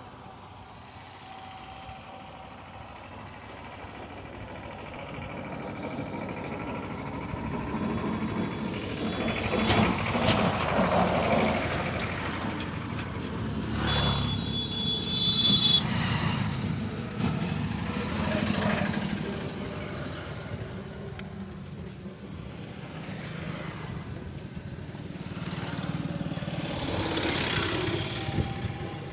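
Road vehicles passing, their noise swelling and fading several times, with a short high-pitched beep about halfway through.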